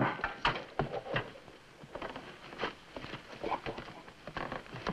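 Footsteps and rustling of people moving about on a wooden floor: soft, irregular knocks and shuffles, the loudest right at the start.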